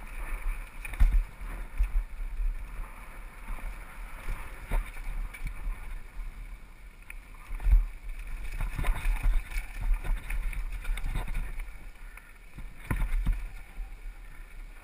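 Mountain bike descending a rough dirt trail, heard from the rider's helmet camera: tyres rolling over dirt and rocks, the bike rattling, and wind on the microphone, with heavy thumps from bumps and drops about a second in, near eight seconds and around thirteen seconds.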